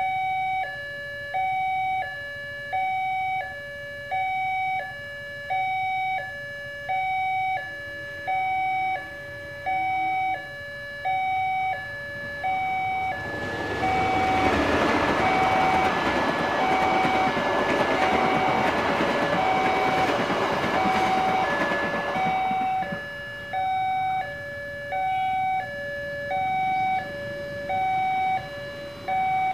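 Level-crossing warning alarm from the loudspeaker on the crossbuck pole, sounding a steady two-tone electronic chime that alternates high and low about once a second. From about 13 to 22 seconds in, a KAI passenger train rushes through the crossing and its loud rumble and wheel noise swamp the chime. The alarm cuts off near the end as the barriers lift.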